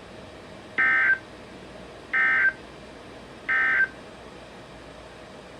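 Three short bursts of EAS/SAME digital data tones, a buzzy two-tone warble, each about a third of a second with about a second between them. This is the end-of-message (EOM) code that closes an Emergency Alert System broadcast.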